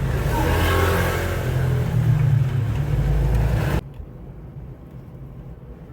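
A vehicle engine running with a low rumble, stopping abruptly about four seconds in.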